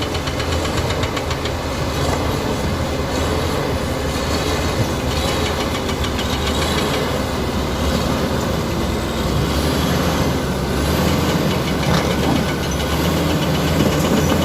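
Komatsu D85E-SS crawler bulldozer's diesel engine running steadily, with a fast, even metallic clatter over it.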